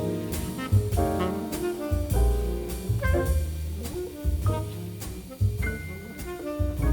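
Background jazz music with saxophone or brass lead, bass and drums.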